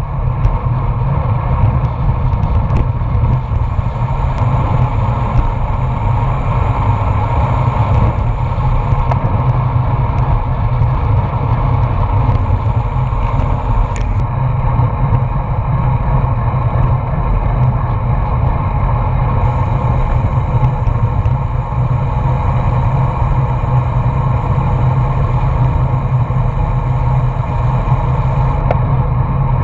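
Wind rushing over the microphone of a GoPro on a moving road bike: a loud, steady rumble that goes on without a break.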